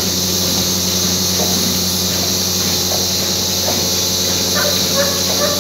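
Gas hissing steadily out of a bloated cow's rumen through a metal trocar cannula in its flank.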